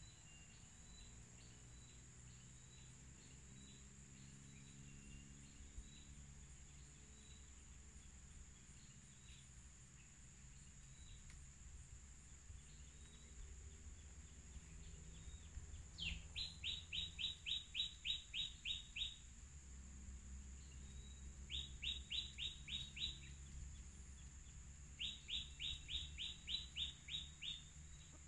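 A bird calling in three bouts more than halfway through, each a quick run of about ten high, downward-sweeping notes lasting one to three seconds. A faint steady high tone runs underneath.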